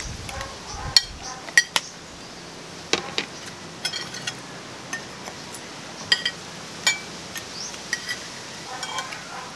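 Metal spoons and a ladle clinking against ceramic plates and a soup bowl: irregular sharp taps and scrapes, about a dozen, some with a short bright ring.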